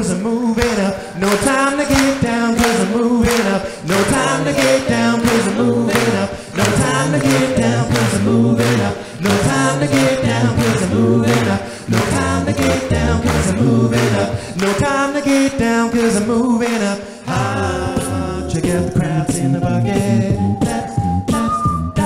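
Male a cappella quartet singing live: a low sung bass line and close vocal harmonies over a steady beat of vocal percussion.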